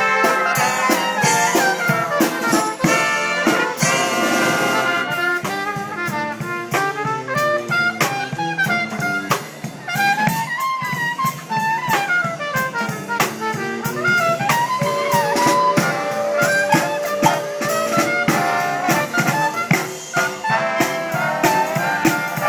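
Brass and percussion marching band playing a tune: trumpets and trombones carry the melody over a sousaphone, with steady snare and bass drum beats. A single long note is held about two-thirds of the way through.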